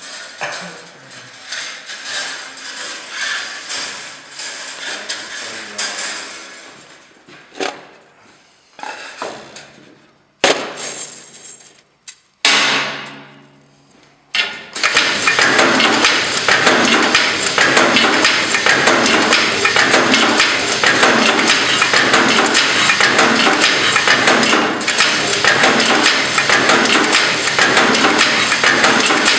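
Wire-mesh resistance welding machine at work: irregular metallic knocks and clanks, then from about fifteen seconds in a steady, evenly repeating clatter as it cycles.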